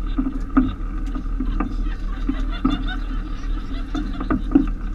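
Tour boat's engine droning steadily, with passengers chattering and a few sharp knocks on deck.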